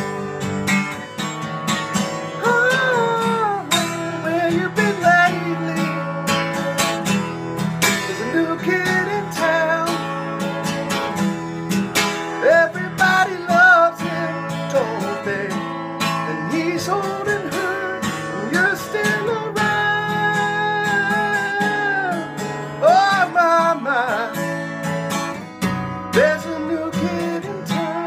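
Small-bodied acoustic guitar strummed in a steady rhythm, with a man's voice singing a melody line over it without clear words.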